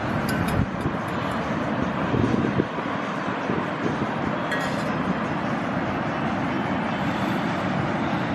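Steady rushing noise, heaviest in the low end, with a couple of short metallic clinks from a small frying pan and spatula, one near the start and one about halfway through.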